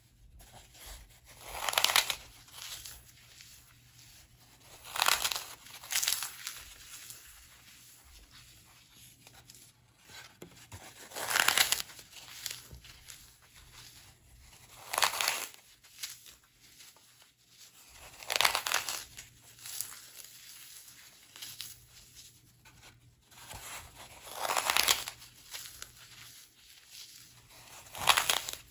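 OASIS Midnight floral foam being snapped, crushed and crumbled by hand: about eight loud crunching breaks, a few seconds apart, with softer crumbling and rubbing between them.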